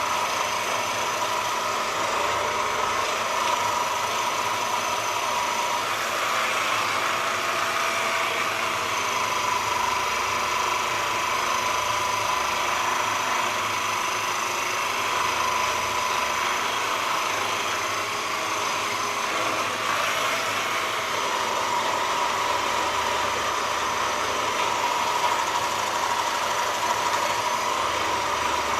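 Handheld percussion massage gun running steadily against the muscles, a continuous motor whine whose pitch shifts slightly a few times.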